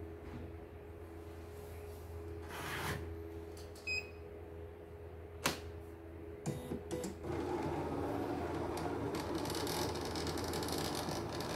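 CNY E900 computerized embroidery machine: a short electronic beep about four seconds in and a sharp click, then from about seven seconds a steady mechanical buzz as its motors run, over a low electrical hum.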